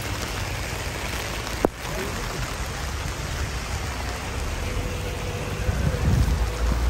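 Steady rain falling on wet paving and stall tarpaulins, with one sharp click about one and a half seconds in and a low rumble near the end.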